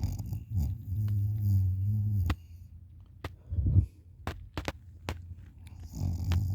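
A person snoring with their mouth open: a long low rumbling snore about a second in, a short snort a little past the middle, and another snore starting near the end, with a few faint clicks between.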